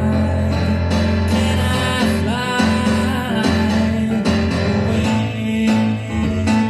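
A man singing a song while accompanying himself on a Roland digital stage piano, with held chords under the voice.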